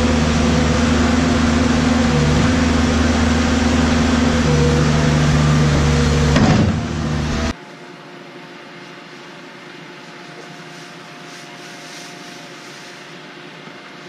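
New Holland skid steer loader's diesel engine running steadily, with a brief surge just before it cuts off sharply about halfway through. After that there is only a much quieter steady hum.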